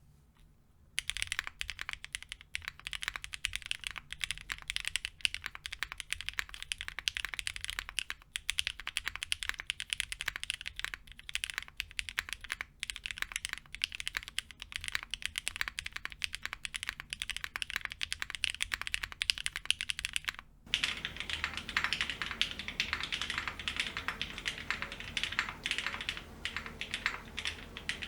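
Continuous typing on a gasket-mounted, plateless mechanical keyboard (small island plates) with linear Cherry MX Black Hyperglide switches and GMK ABS keycaps: a dense stream of keystrokes. It starts about a second in, breaks off briefly about two-thirds of the way through, then resumes with a fuller sound.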